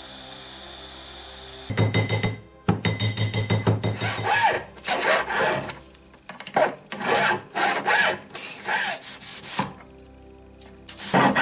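Hand file rasping across a soldered silver ring band held against a wooden bench peg, about two strokes a second, starting a couple of seconds in and stopping shortly before the end.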